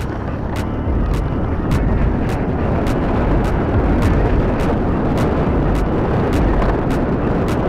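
Loud wind and road rumble from a vehicle on the move, with a faint tick recurring about every half second.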